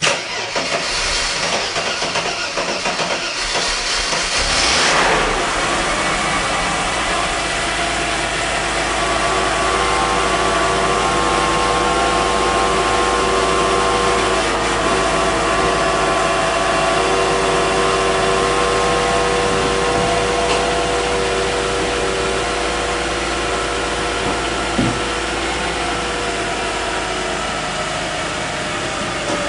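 Mercedes-Benz E320 convertible's hydraulic soft-top pump running with a steady whine over the idling engine, cycling the roof to bleed air from the hydraulic system. The sound starts abruptly and is noisier for the first few seconds before settling into the whine.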